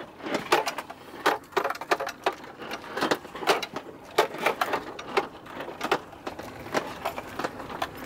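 Camper van cab rattling and clattering as it drives over a rough, rocky dirt road: sharp, irregular knocks and clicks, several a second.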